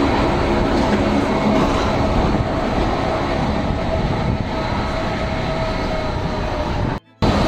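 Gornergrat electric rack-railway train running, heard from aboard: a steady, even rumble with a faint steady hum. The sound cuts out briefly near the end.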